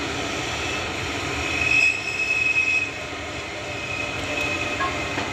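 A steady rumbling noise with a high-pitched squeal that rises about two seconds in, lasts about a second, and comes back more faintly near the end.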